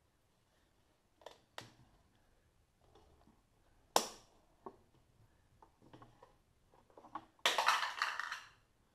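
Plastic clicks and knocks from a Bosch contact grill being handled, with one sharp click about four seconds in. Near the end comes about a second of rattling and rubbing as the grill is turned over.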